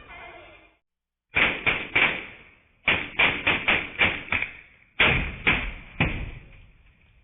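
Sharp knocks or impacts, about a dozen in three quick clusters: three, then six, then three, each hit dying away briefly.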